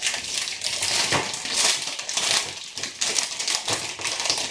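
Crinkling and crackling of a chocolate bar's wrapper as it is torn open and peeled back by hand, a dense run of sharp crackles with a few louder ones.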